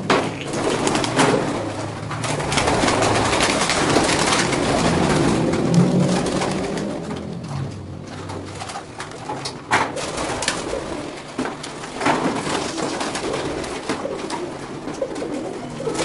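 Domestic pigeons cooing in and around their loft, several birds at once, with a few sharp clacks mixed in.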